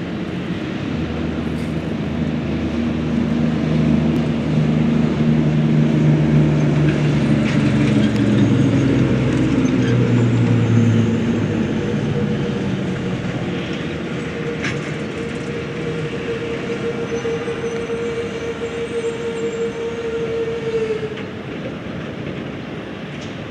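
A cattle truck's engine drones as it drives past, loudest from about four to eleven seconds in, with its engine note falling as it goes. A steady whine carries on until about twenty-one seconds in, then fades.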